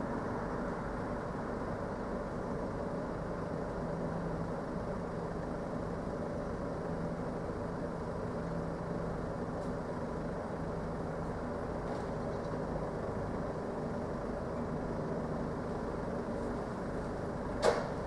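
Steady mechanical drone from a supermarket goods yard where a refrigerated home-delivery box van stands, with a single sharp bang near the end.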